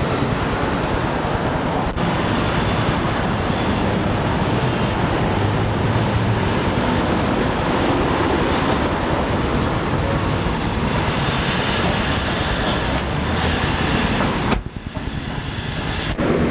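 Steady city street traffic noise, a continuous wash of passing vehicles. Near the end it cuts out abruptly for about a second and a half, then comes back.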